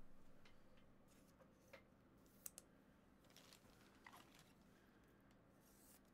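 Near silence: faint room tone with a low hum and a few soft, scattered clicks of trading cards being handled.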